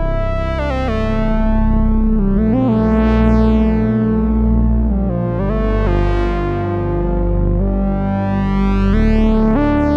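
Oberheim Two Voice Pro analog synthesizer playing two parts at once, a low sustained bass under a higher line, its notes sliding in pitch from one to the next. The tone brightens and darkens in slow filter sweeps about every three seconds.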